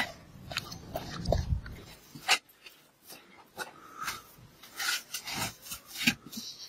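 Scattered rustles, scrapes and light knocks of handling a wicker basket: carried along a dirt path at first, then set down and rummaged through by hand.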